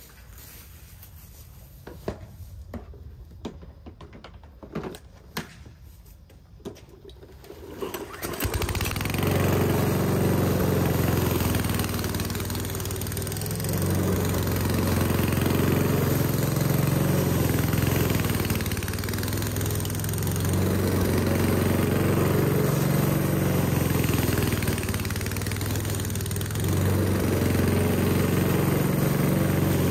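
A few clicks and knocks, then about eight seconds in an Aldi Ferrex self-propelled petrol lawn mower's engine starts suddenly and runs steadily while mowing. Its level swells and eases every few seconds.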